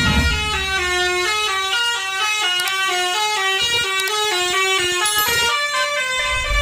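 Tour bus's musical multi-tone horn (an Indonesian 'telolet' horn) playing a quick stepping melody, ending on one held note, with the bus engine running low underneath at the start.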